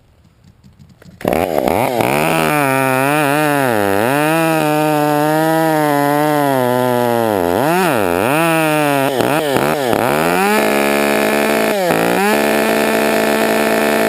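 Chainsaw starting up about a second in, then revving, its pitch rising and dipping several times before holding steady near the end.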